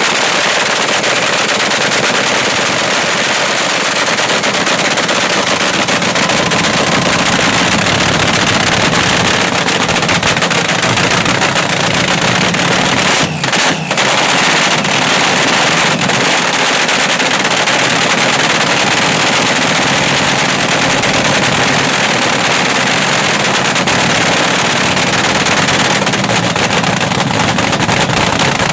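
The supercharged V8 of the Magicar front-engine dragster running through open zoomie headers: a loud, rapid, steady crackle.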